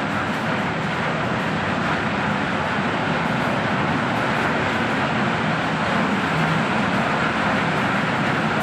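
Steady industrial machinery noise: a constant rumble and hiss that keeps an even level with no breaks or separate knocks.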